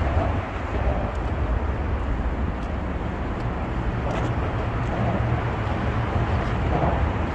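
Wind buffeting a phone's microphone: a steady, loud, deep rumble.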